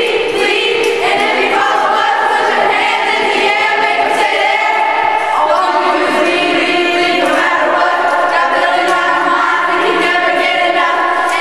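A group of young voices singing together, with no instruments or beat heard.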